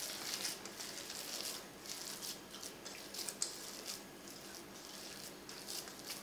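Wet minced pork mixture being squeezed and kneaded by hand in a stainless-steel bowl: soft squelching and squishing in irregular bursts.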